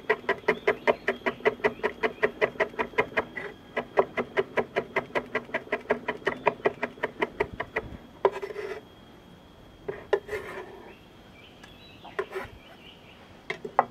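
Chef's knife rapidly chopping red chili on a wooden cutting board, about six even chops a second, finely mincing it so it will grind into a paste. After about eight seconds the chopping stops and a few short scrapes follow as the knife sweeps the minced chili off the board into a stone mortar.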